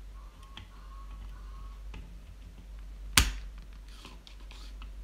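Spring-loaded solder sucker (desoldering pump) firing once about three seconds in: a single sharp snap as the plunger springs back and sucks molten solder off a resistor joint. A few faint ticks come before it.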